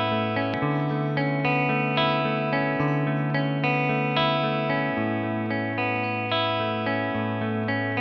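Electric guitar played through an amplifier: picked chords about twice a second over a ringing low note that shifts pitch a few times.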